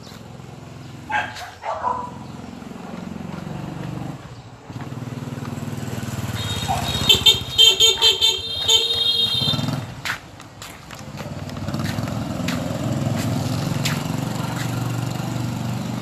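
A motor vehicle engine running steadily, with a horn beeping in a quick run of short toots about halfway through.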